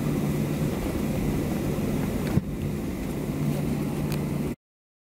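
Cabin noise of a Boeing 737-700 taxiing after landing: a steady hum from its CFM56 jet engines mixed with air rush, with one sharp click a little past halfway. The sound cuts off abruptly near the end.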